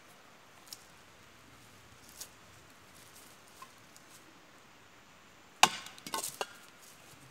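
A sharp woody crack about two-thirds of the way in, followed at once by a quick rattle of smaller knocks, from hands working at a tree trunk; faint small clicks come before it.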